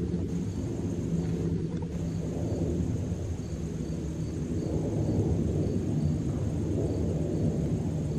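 An Airbus A321 twin-jet airliner climbing out overhead after takeoff: a steady low rumble of jet engines.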